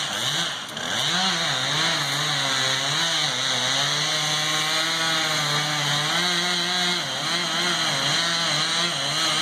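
Chainsaw running under load as it cuts into the trunk of a dead pine tree. Its engine pitch dips and recovers slightly as it cuts.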